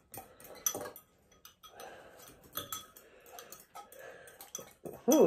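Forks stirring and scooping noodles in Maruchan Instant Lunch foam cups: a scatter of light clicks and scrapes.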